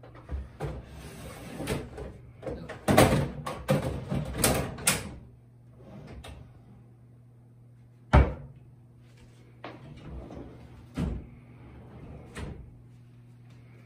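Kitchen cabinet drawer on metal runners being pulled out and pushed shut again and again, with a flurry of clacks and knocks from the drawer front and box, then one sharp knock about eight seconds in as it shuts, and a few lighter knocks after.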